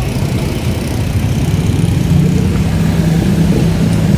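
Motorcycle engine running at low revs close by, its pitch stepping up slightly about two seconds in.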